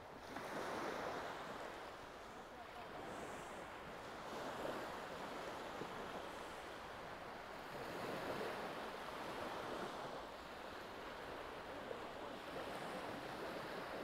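Sea waves washing onto the shore: a steady rush that swells and fades every few seconds.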